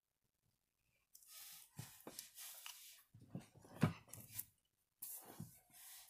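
Broad-tip marker rubbing across shrink plastic in short coloring strokes, a scratchy hiss that starts about a second in and comes again near the end, with a few knocks in between, the loudest about four seconds in.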